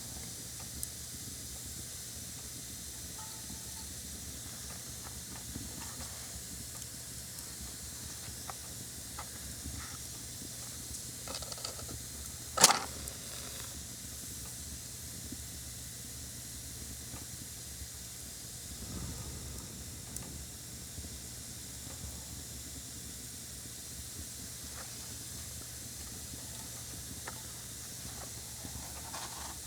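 A match struck once, a sharp, loud scrape with a brief flare about halfway through, over a steady hiss with faint scattered crackles. A few seconds later comes a soft, low rush of breath as the match is blown out.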